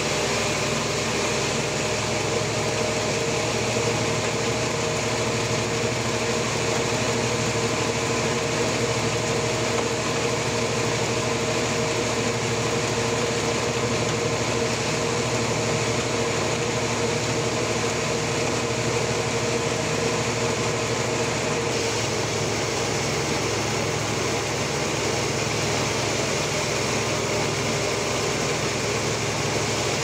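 Sawmill machinery running steadily, an even mechanical hum with a constant whine.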